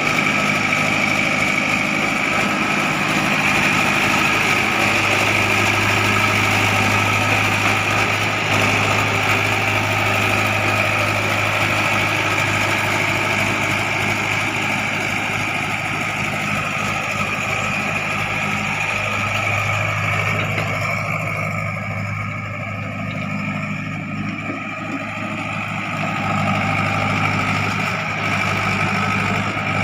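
Diesel engine of heavy earthmoving machinery running steadily, with a high whine held over it. The sound eases off about two-thirds of the way through, then picks up again near the end.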